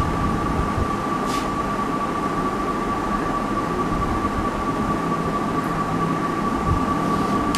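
Steady background hum and hiss with a constant high-pitched whine, unchanged throughout, with one faint brief scratch a little over a second in as a marker is drawn across a whiteboard.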